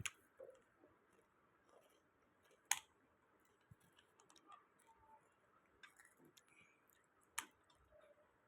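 Near silence broken by a few sharp clicks, with two louder ones about three seconds in and near the end.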